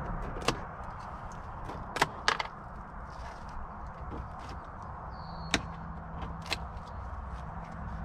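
Plastic trim clips of a 2017 Toyota Highlander's rear cargo trim panel snapping loose as they are pried out with a plastic trim tool: about five sharp plastic clicks, the loudest pair about two seconds in.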